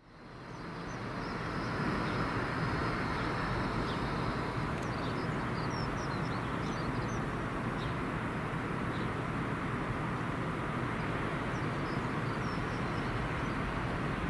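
Steady running noise of a railway locomotive engine, fading in just after the start and then holding level, with a few bird chirps around the middle.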